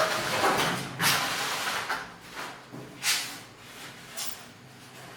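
Protective packaging being pulled off a new washing machine: a series of noisy rustling and tearing bursts, the loudest at the start and about a second in, with further ones about three and four seconds in.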